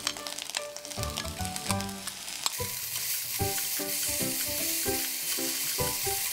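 Eggplant pieces sizzling in an oiled frying pan as they are stir-fried, with small clicks of the stirring utensils. About two and a half seconds in, the sizzle turns louder and steadier, once the seasoning sauce is in the pan. Background music plays over it.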